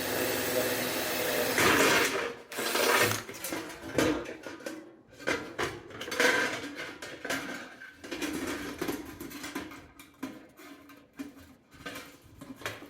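Steady whirring for about the first two seconds, then irregular metal clattering and scraping as parts are handled and fitted.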